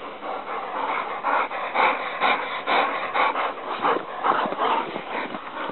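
Two dogs playing, making a run of short, irregular vocal sounds through the whole stretch.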